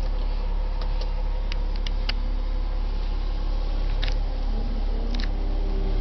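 Steady, low engine rumble heard from inside a vehicle cab, with a few short sharp clicks scattered through it.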